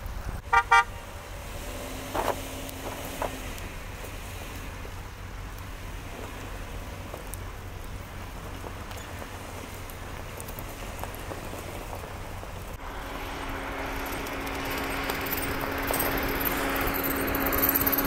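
A car horn gives two short toots about half a second in, then a steady low rumble of vehicles runs on. About two-thirds in, a louder hiss with a steady hum takes over.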